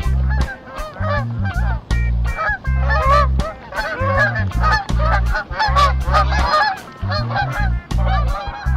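A flock of geese honking, many calls overlapping and crowding one another, over a low rumble that comes and goes in short blocks.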